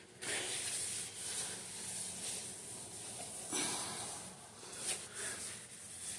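A rag rubbing and wiping inside a freshly honed engine cylinder bore, in a string of uneven scrubbing strokes, to clear honing grit from the crosshatch before the piston goes in.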